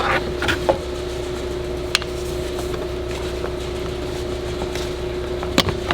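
A few sharp clicks and taps of plastic intake parts and clips being worked by hand, the loudest about two seconds in and near the end, over a steady hum with a constant tone.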